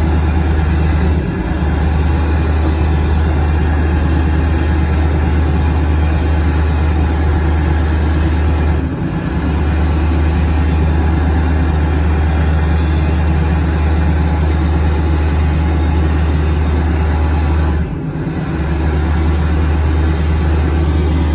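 Hand dryer motor running and blowing air steadily with a low hum. It cuts out for a moment three times and comes straight back on, a sign of the dryer's faulty hand sensor.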